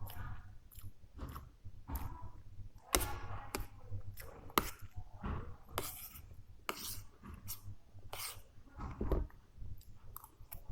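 Close-up eating sounds: a person chewing and smacking on a mouthful of chicken curry and rice, with irregular wet clicks and smacks.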